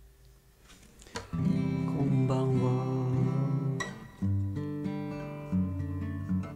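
Acoustic guitar strummed: after about a second of quiet a full chord rings out for a few seconds, then a couple more strums change to new chords.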